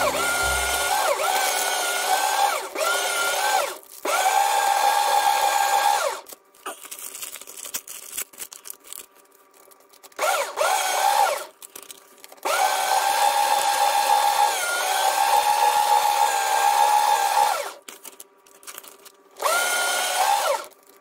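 Electric paper shredder running in repeated bursts as paper is fed through it. Its motor whine starts with a short rise in pitch, runs for a few seconds and stops, about five times over, with quieter gaps between.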